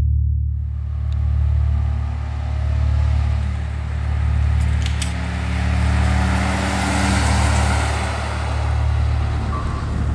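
A car drives past, its engine and tyre noise building to a peak about seven seconds in and then easing off, over a steady, slowly pulsing low drone.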